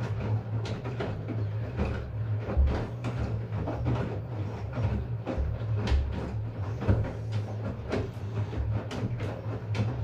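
LG Direct Drive front-loading washing machine tumbling a small load in its wash cycle: a steady low motor hum with irregular knocks and clatter as the laundry lifts and drops in the turning drum.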